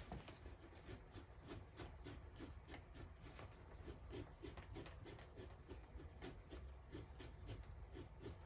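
A Victorinox knife blade scraping fat and membrane off a beaver pelt while fleshing it. The strokes are short, quick and faint, about three a second.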